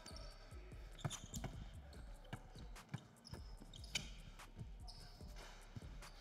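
Basketball dribbled on an indoor hardwood court: a string of irregular sharp bounces.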